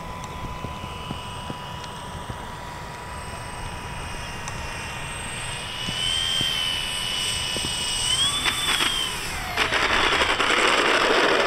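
Twin electric motors and propellers of a P-38 model airplane landing. A steady whine steps up in pitch about halfway, rises and then falls away as the throttle comes off near the end, and a louder rushing noise follows.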